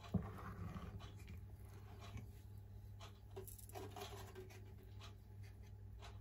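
A spatula knocks against a stainless steel mixing bowl just after the start, then scrapes and stirs through thick rice-flour batter for about a second. After that come only a few faint clicks over a low steady hum.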